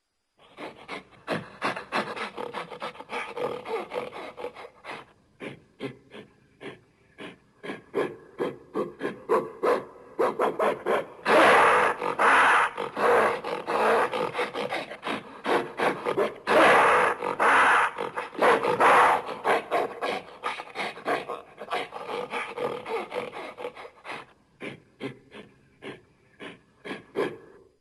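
Gorilla vocalising: a long run of short, rapid grunts, broken near the middle by two louder drawn-out calls a few seconds apart.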